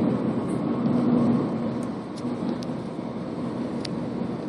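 Steady road and engine noise of a moving car heard from inside the cabin, easing slightly about two seconds in.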